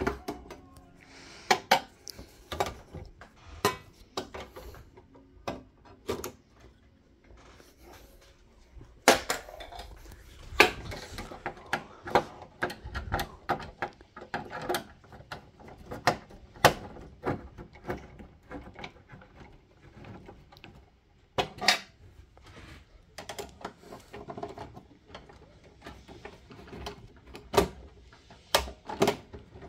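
Irregular clicks, clinks and knocks of metal and plastic parts being handled on an Industria 2500 street lamp fixture: its metal housing, reflector and plastic lamp holders. A few of the knocks are sharper and louder.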